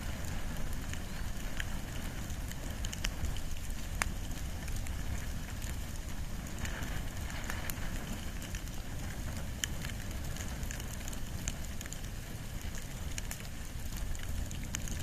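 Wood and bamboo fire burning, with a steady low rumble under scattered crackling and a few sharper pops, the loudest about four seconds in.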